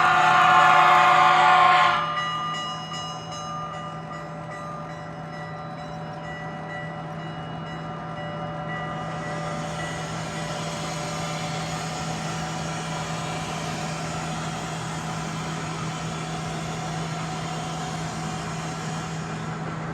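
Sound-equipped HO-scale model locomotives: a loud multi-note diesel horn chord that cuts off about two seconds in. A steady low hum follows, and a soft hiss comes in about nine seconds in.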